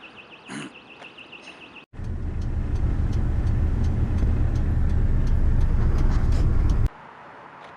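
An electronic alarm sounds a high, rapidly warbling tone for about the first two seconds. Then it cuts off abruptly, giving way to a loud, low rumble for about five seconds that stops suddenly, leaving a quieter steady background.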